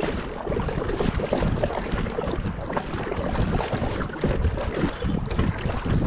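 Wind buffeting the microphone, with water splashing against a kayak's hull as it moves across choppy water.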